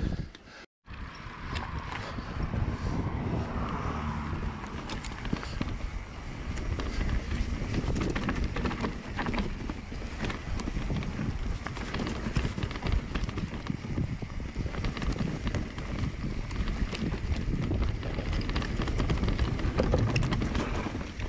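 Mountain bike ridden fast down a rooty forest trail: tyres rumbling over roots and rocks, with the chain and frame clattering in irregular knocks. Wind buffets the microphone.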